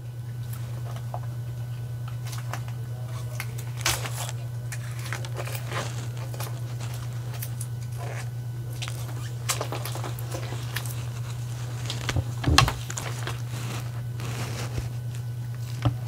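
Scattered crinkles, clicks and light knocks of cellophane-wrapped dog donuts being handled on a table, over a steady low hum. The loudest knocks come about four seconds in, twice more between nine and thirteen seconds in, and again near the end.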